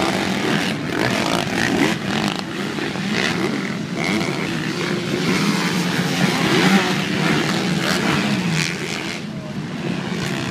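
Several motocross dirt-bike engines running and revving at once over the track, a continuous mixed drone whose pitches rise and fall as riders throttle on and off.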